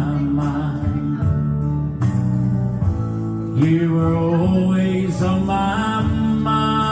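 Live country music: a male singer with a band, guitar prominent, playing a slow ballad as the last line of the song is sung and held.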